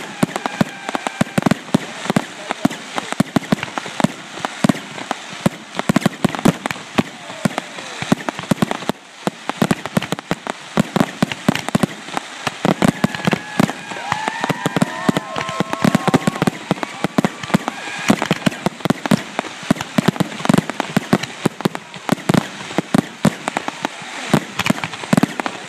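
Fireworks going off in a dense, continuous barrage of pops, bangs and crackles, several every second.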